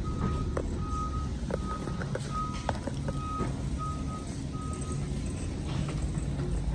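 A backup alarm beeping, a single tone repeating about every three-quarters of a second, which stops about five seconds in. Beneath it are a steady low rumble and a few knocks from a wire shopping cart being pushed.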